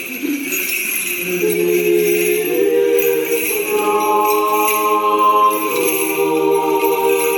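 Church choir singing Orthodox chant in several voices, holding long notes and moving to new chords every second or two.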